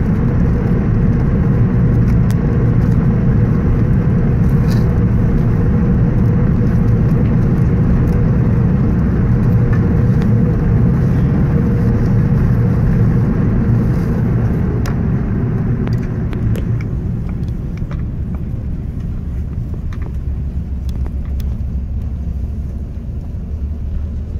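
Cabin noise of an Airbus A380 during its landing rollout: a loud, steady rumble of engines and rushing air. It eases off over the last several seconds as the aircraft slows.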